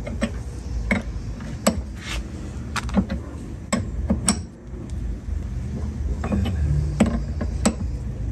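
Irregular sharp metallic clicks and clinks, about eight in all, from a combination wrench working on chrome hydraulic fittings as they are tightened snug, over a low steady hum.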